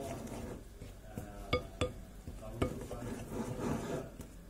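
A spoon stirring flour into water and oil in a glass bowl, with three light clinks of the spoon against the glass near the middle, each ringing briefly.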